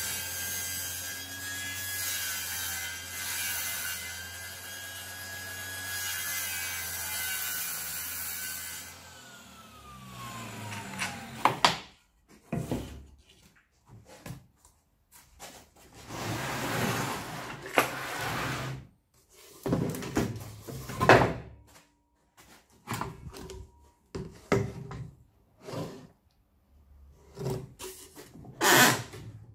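Table saw running and cutting along the edge of a board held in a plywood jointing jig sled, a steady high whine over the cut; about nine seconds in it is switched off and the whine falls away as the blade spins down. After that, wood rubbing, sliding and knocking as the board and jig are moved about on the plywood saw table.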